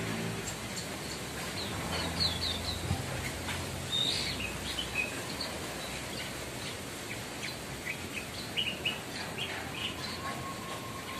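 Javan bush lark (branjangan) calling: short, high chirps and quick falling notes, scattered irregularly.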